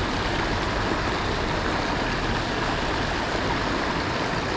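Steady rushing of flowing water in a small creek with a current.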